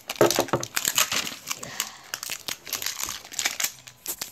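Clear plastic parts bag crinkling and rustling in irregular crackles as it is handled.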